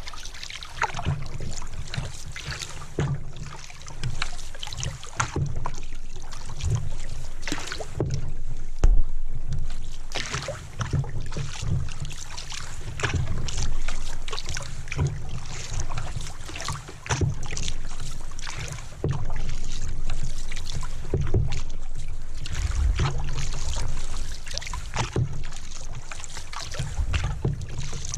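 Canoe under paddle: water swishing and splashing along the hull with each stroke, over a throbbing rumble and frequent knocks carried through the boat to the camera mount, which gives the sound a clunky tone.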